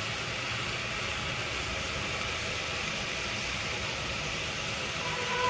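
Steady hiss with a low rumble from the gas stove burner flame under the pressure cooker, even and unchanging.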